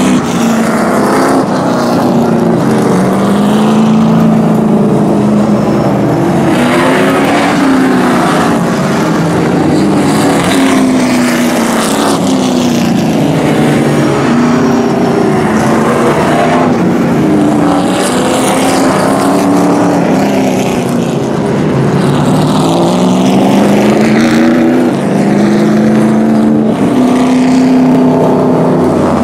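A field of short-track race trucks running at racing speed, several engines at once rising and falling in pitch as the trucks pass and accelerate through the turns.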